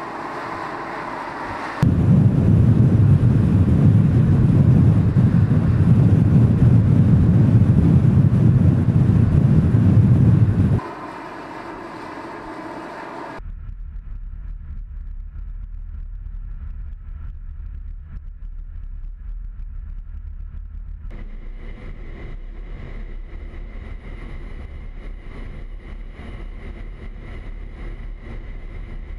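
Volkswagen Scirocco R on the move, in edited sections that change abruptly: a loud stretch of low road and wind noise for about nine seconds, then a quieter steady low engine drone, joined by a thin steady tone for the last third.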